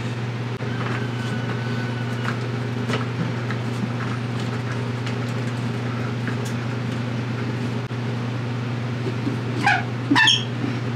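Steady low machine hum with faint light knocks from wooden hive-box pieces and a clamp being handled. About ten seconds in comes a brief, louder, higher-pitched sound.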